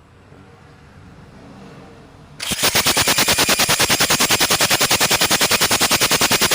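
Diesel engine turned over by its starter motor with the glow plugs removed, a loud, fast, even beat of about ten pulses a second starting a little over two seconds in. It is being cranked to bleed the freshly overhauled fuel system, pushing diesel from the injection pump out through the glow plug holes.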